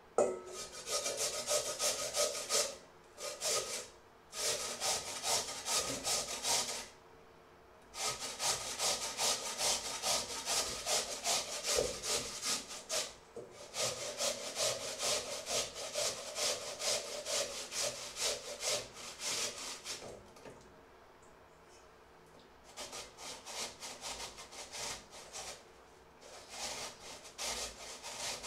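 Potato being grated on a flat handheld metal grater: runs of rapid rasping back-and-forth strokes, broken by short pauses and a longer break about two-thirds of the way through.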